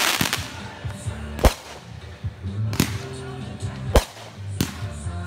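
Backyard aerial fireworks going off: a crackling hiss dies away at the start, then a string of sharp bangs follows, about one every second and a quarter, five in all.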